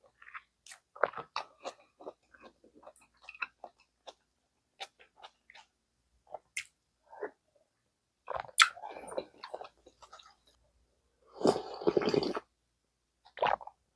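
Close-miked chewing and eating of gamjatang, Korean pork-bone and potato stew: a run of short, wet mouth clicks and smacks, with two louder, longer stretches of eating noise about eight and a half and eleven and a half seconds in.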